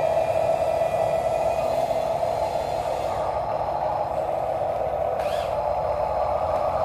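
Small electric motors and gearboxes of RC toy construction vehicles running, a steady hum with a faint high tone above it.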